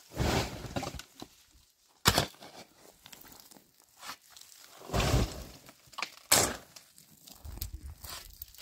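Metal shovel digging into gravelly earth and tossing it: drawn-out crunching scrapes at the start, about five seconds in and near the end, with sharp knocks about two and six seconds in.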